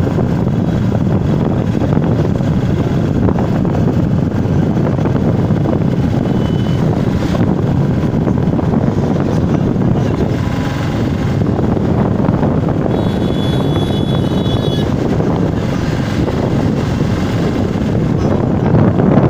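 Motorcycle riding at a steady speed on a paved road: a constant rush of wind on the microphone mixed with engine and road noise. About two-thirds of the way through, a brief high-pitched tone sounds for a couple of seconds.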